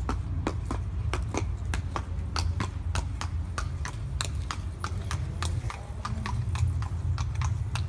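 A Thoroughbred filly's hooves clip-clopping on hard ground as she is led at a walk, in a steady run of about four to five hoofbeats a second over a low, steady rumble.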